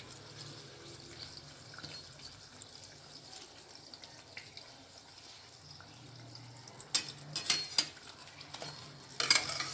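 A puri deep-frying in hot oil in a kadai, with a faint, steady sizzle and crackle. A spatula knocks and scrapes against the pan a few times about seven to eight seconds in as the puri is turned, and a louder burst of sizzling follows near the end.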